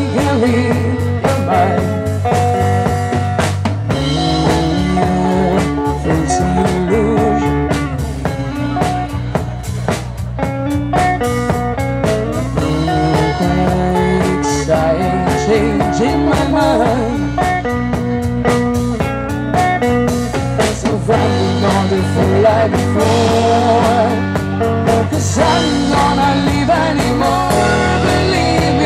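Live rock band playing: a woman singing into a microphone over electric guitars and a drum kit, amplified through PA speakers.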